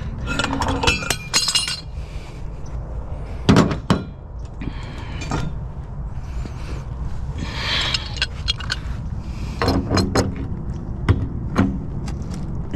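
Metal clinks and knocks of hand tools working on a scrapped water heater's fittings, scattered and irregular with one louder clank about three and a half seconds in, over a steady low rumble.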